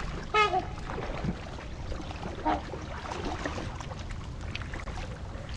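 Waterfowl honking: two short honks, one about half a second in and a fainter one about two and a half seconds in, over a steady background wash.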